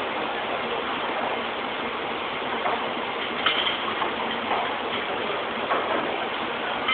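Steady noise of factory machinery on a production floor, with a few sharp metallic clinks from the middle onward as metal castings are handled on the racks.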